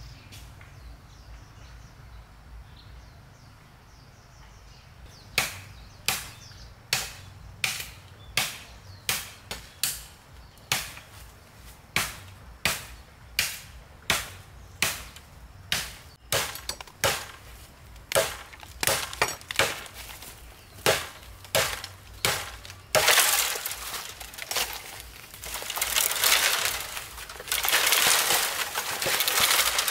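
Green bamboo being chopped: sharp, ringing blade strikes at about one and a half a second, starting about five seconds in. Near the end the strokes give way to loud crackling and rustling of bamboo stems and leaves as the cut culm is worked loose and falls.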